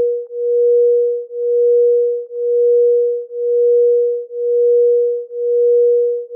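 A pure electronic sine tone, mid-pitched and without overtones, pulsing evenly: it swells and fades about once a second.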